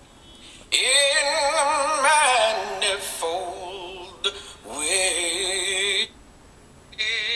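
A singing voice holding a few long notes with strong vibrato, separated by short breaks, played back through a smartphone's loudspeaker with thin bass.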